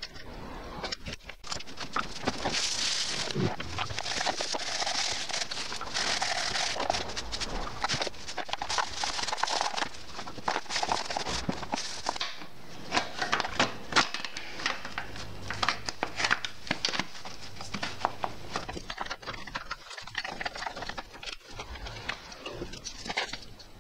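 Hand work on a Honda Shanks roller mower: a spanner clicking on a cable adjuster nut, then plastic covers handled on a concrete floor and fitted, giving many small clicks, taps and knocks. A rustling scrape runs through roughly the first half.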